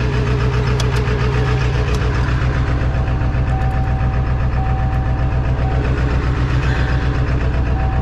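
Diesel truck engine running steadily at a raised high idle with an even beat, soon after a remote cold start at about 19 °F. The engine went to high idle on its own, which the owner guesses is a built-in cold-weather warm-up feature.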